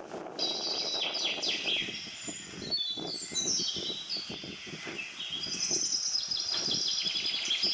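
Birds chirping and singing, several calls overlapping throughout, over a low uneven background noise.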